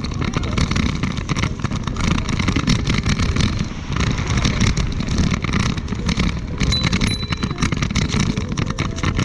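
Wind buffeting the microphone of a camera moving quickly along a path: a steady rushing rumble with many small crackles.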